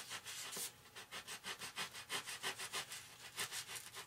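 Hobby knife sawing back and forth through a foam RC airplane wing, trimming a small recess, in quick scratchy strokes about six a second.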